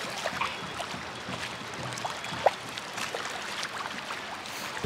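Small lake waves lapping and trickling at the shoreline, with one sharper plop about halfway through.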